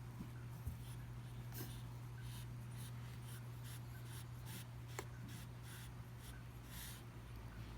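A run of short scratchy, rasping strokes, a few a second, with one sharp click about five seconds in, over a steady low hum.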